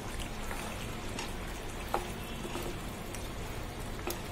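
Wooden spatula stirring chicken curry gravy in a metal kadai as it cooks, with a soft steady sizzle and light scrapes and a small knock about two seconds in.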